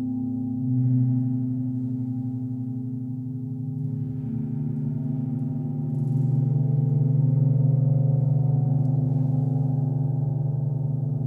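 Large metal gongs ringing in a continuous, layered drone of low tones that beat slowly against each other, played with soft ball-headed mallets. The sound swells about a second in, again around four seconds, and most strongly from about six seconds.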